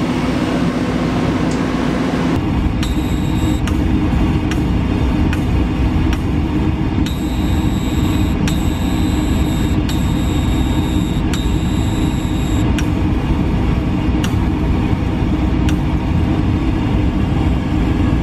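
Aeon Mira 7 CO2 laser cutter running a cut: a steady machine hum with light ticks. About halfway through, a high whine switches on and off in stretches of about a second and a half.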